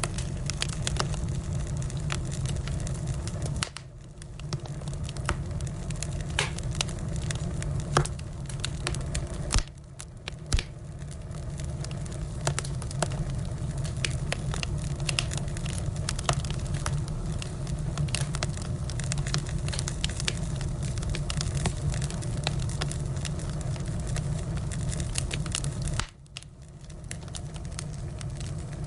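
Firewood fire burning, crackling with frequent sharp pops over a steady low rumble; the sound drops away briefly three times.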